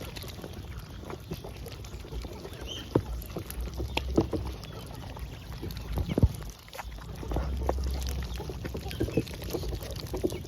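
White Muscovy ducks dabbling and splashing in water: scattered small wet clicks and splashes, a few louder ones about three, four and six seconds in, over a low rumble.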